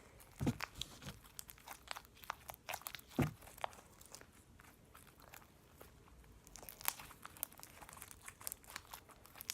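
Homemade Elmer's glue slime activated with Tide detergent being kneaded by hand: irregular wet clicks, crackles and squelches, with louder pops about half a second in and just after 3 seconds. The slime is still slightly sticky and pulling off the hands.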